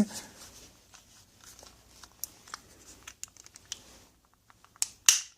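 Light plastic clicks and ticks from handling the pieces of a disassembled power window switch, with a louder short scrape near the end.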